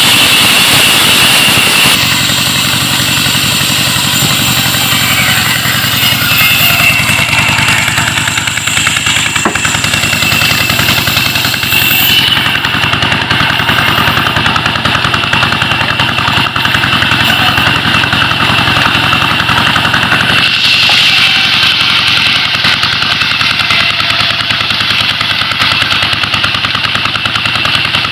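Stationary Petter-type diesel engine running steadily and driving a wood-cutting saw machine (ara), with the tone shifting a few times, about 2, 12 and 20 seconds in.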